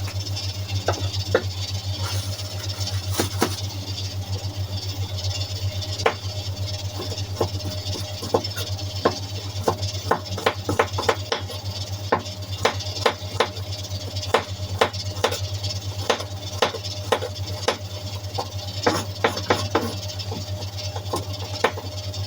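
Kitchen knife slicing a carrot, each cut a sharp tap. The cuts are sparse at first, then come quicker at a few a second from about six seconds in, over a steady low hum.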